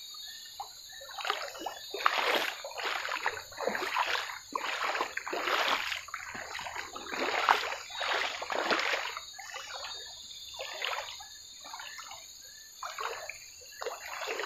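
Footsteps splashing and sloshing through shallow water, irregular steps about one or two a second, over a steady high drone of forest insects.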